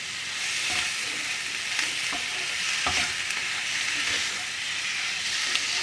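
Chicken pieces sizzling in a hot frying pan with curry spices while a wooden spatula stirs them, with irregular scrapes and knocks of the spatula against the pan.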